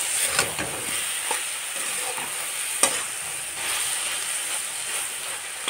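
Spinach, potato and pea sabzi sizzling in a kadhai just after water is added, while a metal spatula stirs and scrapes it, with a few sharp clicks of the spatula against the pan.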